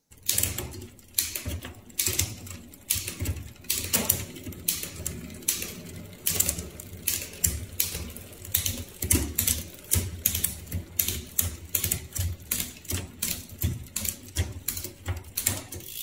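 Heavily worn SRAM 1x11 bicycle drivetrain being cranked and shifted across the cassette: a rapid, irregular clicking and clatter of the chain running over worn cassette teeth and derailleur pulleys. The parts are worn nearly to the end but still shift.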